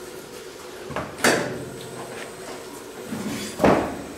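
A few sharp metallic knocks and clanks from a stainless steel pail and its metal handle being handled and moved: two about a second in, then two more near the end, the last the loudest.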